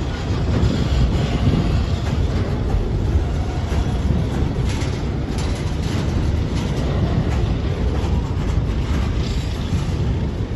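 Freight train rolling by: a steady low rumble of wheels and wagons, with a few clicks of wheels over rail joints midway.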